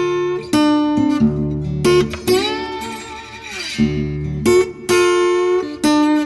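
Background music: guitar with strummed chords and a sliding lead note over a steady bass.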